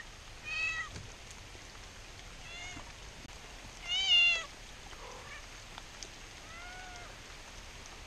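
A frightened cat meowing four times, a few seconds apart, each call rising then falling in pitch; the second and fourth are faint and the one about four seconds in is the loudest. The cat is scared, and its calls are taken as crying for help.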